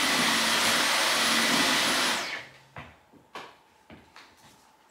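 Dyson V15 Detect cordless stick vacuum running with a steady whoosh, then shutting off about two seconds in. A few faint clicks follow in the quiet, and the motor starts again right at the end.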